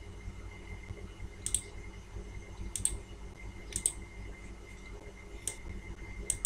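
Computer mouse clicking: about five sharp clicks roughly a second apart, some as quick double clicks, over a low steady hum.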